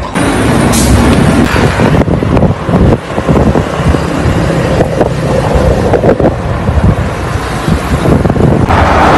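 Wind buffeting a handheld camera's microphone while riding a bicycle along a road: a loud, rough, fluctuating rumble, turning into a brighter hiss near the end.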